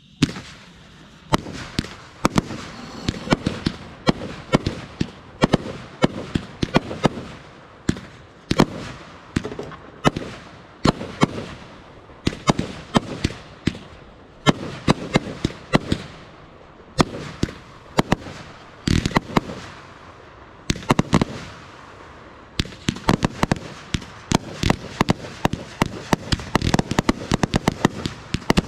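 Consumer multi-shot firework cakes firing in a rapid string of sharp bangs, one to three a second, with crackling between the shots. The shots come faster and closer together in the last few seconds.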